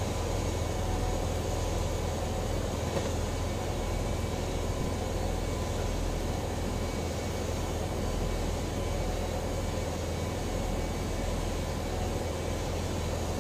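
Steady low drone of a ship's engine machinery, a constant hum with a faint even hiss above it.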